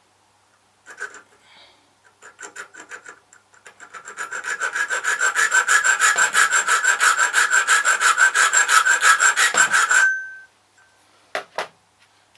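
Hand file cutting into a key blank: a few scattered strokes, then a fast even run of rasping strokes, about five a second, for some six seconds, stopping abruptly. Two light knocks follow near the end.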